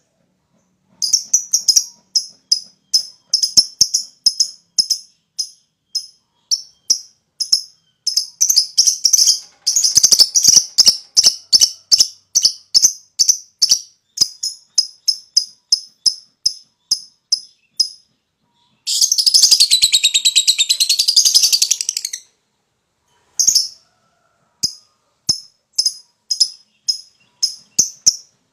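Lovebird chattering in rapid runs of short, high chirps, broken by brief pauses. About two-thirds of the way through it breaks into one long, unbroken rattling trill of about three seconds, the 'ngekek' that lovebird keepers prize.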